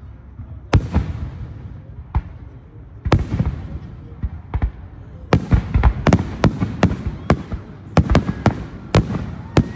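Aerial firework shells bursting with sharp booms: a few spaced reports at first, then a rapid volley of bursts over the second half.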